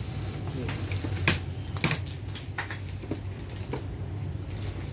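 Shop room tone: a steady low hum with a handful of sharp clicks and light knocks, the loudest about two seconds in.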